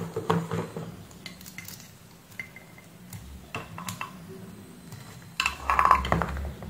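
Small metal clicks and clinks of BNC video and DC power connectors being fitted together by hand, with cable handling noise. It grows louder for about a second near the end.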